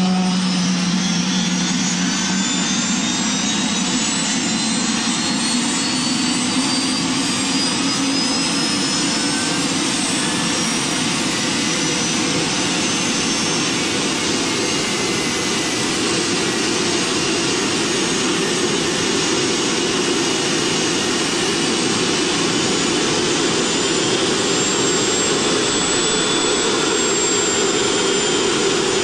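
MTT Y2K Superbike's Rolls-Royce Allison 250 gas turbine running just after start. A high whine rises in pitch over the first ten seconds or so as it spools up, then holds steady over a loud rushing exhaust.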